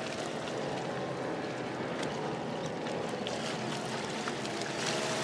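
Steady sizzling and faint crackling of pomfret fish grilling in a wire basket over a charcoal barbecue as cooking oil is drizzled onto them.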